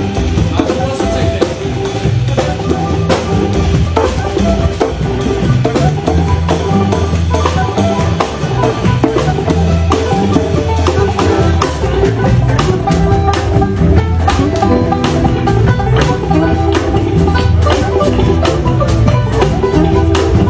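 A live band playing an instrumental groove of Sierra Leonean Bubu music: a steady drum-kit beat with regular sharp hits over a bass line and repeating pitched instrument figures.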